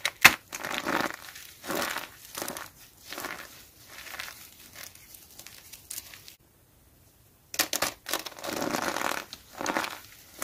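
Dry soap crushed by hand: sharp cracking as a glitter-coated soap piece snaps, then repeated dry crunching as handfuls of soap chips and starch are squeezed, with a short pause about six seconds in before the crunching resumes.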